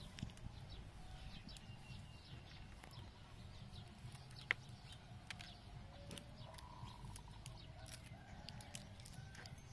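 Small scattered clicks of boiled duck eggshell being cracked and peeled by hand, with one sharper crack about halfway through. Chickens cluck faintly in the background now and then.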